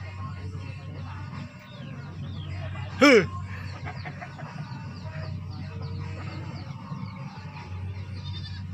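One loud, short animal call about three seconds in, falling slightly in pitch. Behind it, small birds chirp again and again over a steady low hum.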